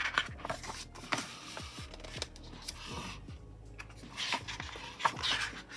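Pages of a paper photobook being turned by hand, the paper rustling and flicking several times.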